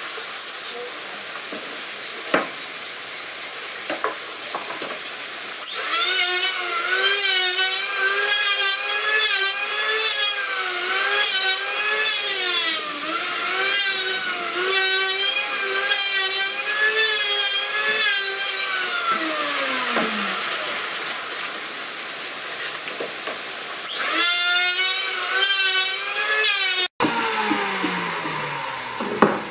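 Sandpaper rubbed by hand over a rosewood stool's top and legs. From about six seconds in, a motor whines alongside with its pitch wavering up and down for some fifteen seconds, and again briefly near the end.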